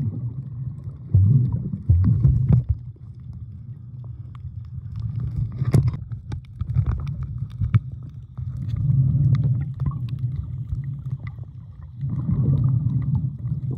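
Muffled underwater sound heard through a camera held below the surface: a low rumble of moving water that swells and fades every few seconds, with scattered small clicks and crackles.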